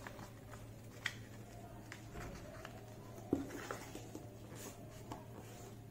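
Faint rustling and light scraping of a sheet of origami paper being folded in half and its crease pressed flat by hand, with a few soft taps, the sharpest a little over three seconds in.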